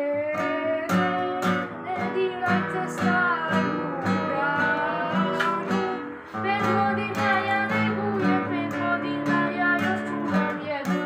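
Acoustic guitar strummed in a steady rhythm, about two strums a second, with a boy's voice singing a song over it.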